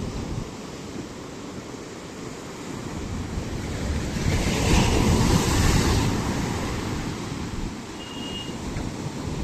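Sea waves breaking on the shore: a continuous wash of surf that swells into one loud crash about four to six seconds in, then ebbs away.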